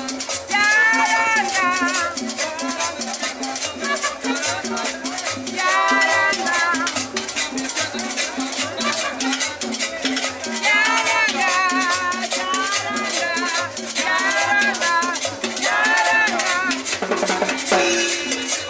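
A live street band playing Latin dance music, with a steady shaker rattle and drum beat and a voice singing in short phrases every few seconds.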